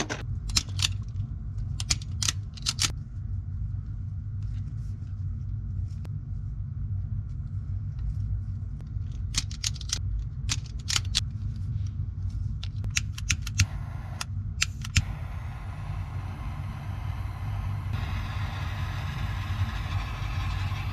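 Clicks and snaps of a wire crimping tool cutting, stripping and crimping butt connectors onto harness wires, over a steady low rumble. A steady hiss comes in briefly in the middle and again for the last few seconds.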